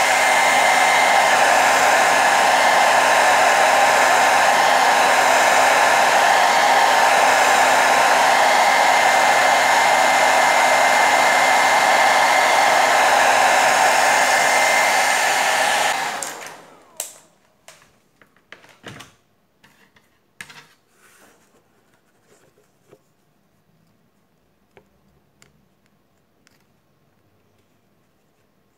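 Hot-air blower running steadily on a phone's screen, heating it to soften the adhesive before the screen is removed. It switches off about sixteen seconds in, leaving scattered light clicks and taps from handling the phone.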